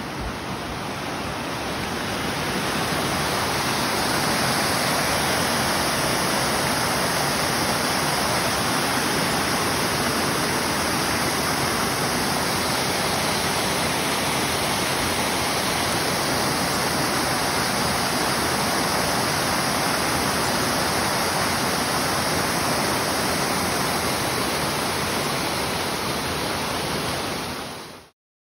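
Rushing water of a forest creek tumbling over small waterfalls and cascades, a steady hiss that grows louder over the first few seconds and cuts off abruptly near the end.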